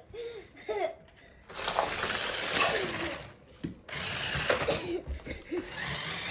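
Toy remote-control monster truck's electric motor whirring in two bursts of about two seconds each as it drives over toys.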